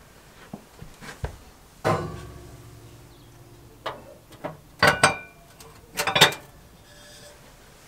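Cast iron Dutch oven being set upside down on a wire oven rack: small clicks, a sharp clank about two seconds in with a short ringing tail, then a run of clanks and rattles as it is shifted into place.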